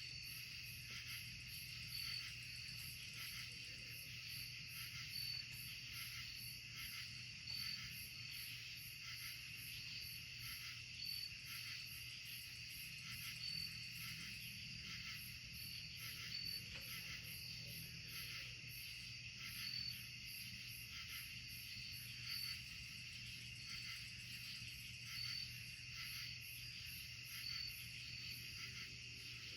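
Chorus of crickets and other insects: steady, high-pitched, many-layered trilling, with one brighter chirp repeating about every second or two. A faint low steady hum lies underneath.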